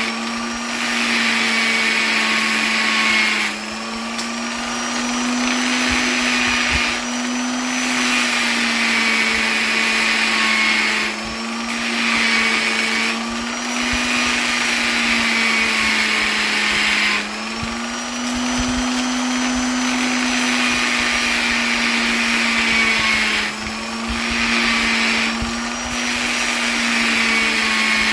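Electric polisher motor running continuously with a steady, high hum, its pitch and loudness sagging briefly every few seconds.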